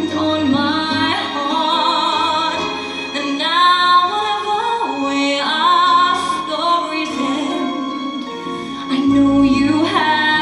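Female voices singing a musical-theatre ballad live, with long held notes and wide vibrato, over instrumental accompaniment.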